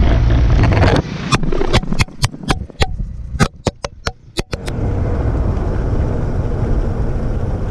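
A camera tumbling across an asphalt road: about a second of wind and motorcycle rumble, then a rapid string of hard knocks and clatters for about three and a half seconds as it hits and bounces along the road, then a steady rushing noise.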